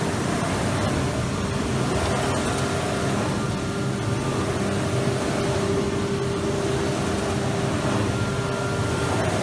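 Wood CNC router machine running steadily: a constant machine noise with an even, unchanging tone.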